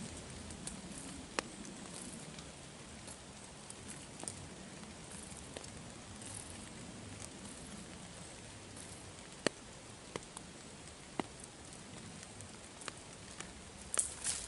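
Quiet woodland background with a faint even hiss and scattered sharp ticks, a few seconds apart, with a short cluster of louder snaps near the end.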